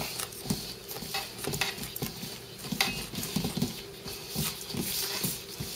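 Chopsticks stirring flour and water in a stainless steel bowl, with irregular light scraping and tapping against the bowl. A thin stream of cold tap water runs in at the same time.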